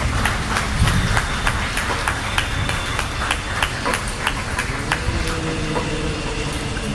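Beatboxing into a microphone: an even run of sharp clicks, about four a second, imitating a train's clickety-clack. The clicks stop about five seconds in, and a low hum rises slightly and holds.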